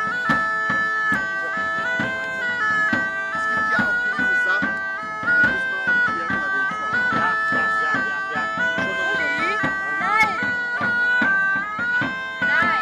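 Bagpipe music: a steady drone held under a chanter melody that steps between a few notes.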